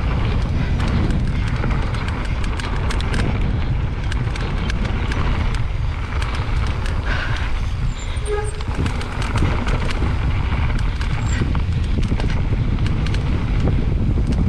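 Mountain bike riding fast down a dirt jump trail: wind rumbling on the camera mic, tyres on dirt, and the bike's chain and frame rattling, with many sharp clunks over the jumps and landings.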